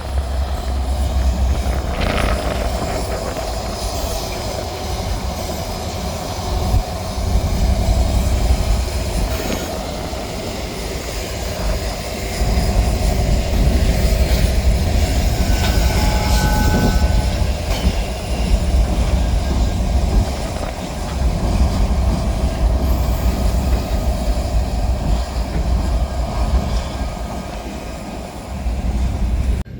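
A train's railroad cars rolling past with a steady low rumble and wheel-on-rail noise, and a brief high wheel squeal about halfway through.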